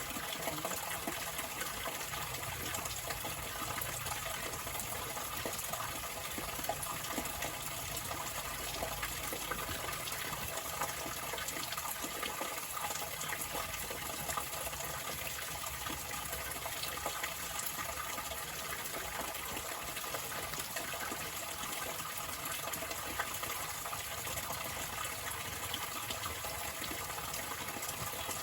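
Flowing water running steadily, an even, unbroken rushing splash.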